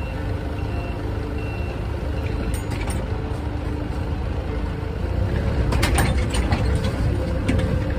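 A vehicle engine running with a reversing alarm beeping, and a few metal clanks about six seconds in as the service crane is set down on the steel truck bed.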